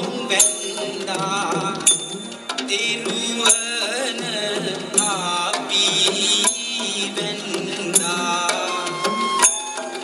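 Sri Lankan dance music for the pathuru dance: drumming under a gliding melody, with a sharp strike about every one and a half seconds.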